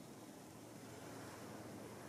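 Faint, steady background hiss with no distinct sound standing out.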